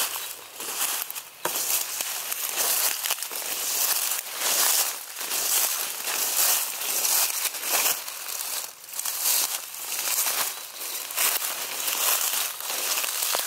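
Dense wild garlic (ramsons) leaves rustling and swishing against legs and feet with each step of someone walking through them, in uneven bursts about once or twice a second.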